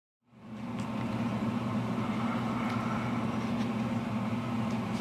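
Room tone: a steady low hum with faint background noise, fading in after a brief silence at the start.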